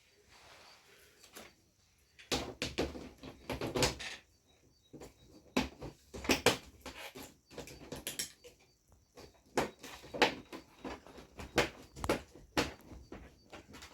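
Irregular knocks, clicks and rustling from handling the parts of an LED TV during reassembly, with a dense run of knocks a couple of seconds in and scattered sharper clicks after.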